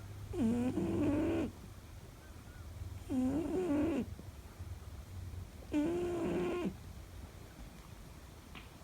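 Exotic Shorthair cat snoring in its sleep: three pitched, wavering snores of about a second each, one every two to three seconds.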